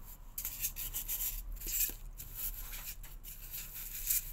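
Hands rubbing and handling a white foam head form while a felt band with elastic is fitted over it: irregular scratchy rustling strokes with a few light ticks.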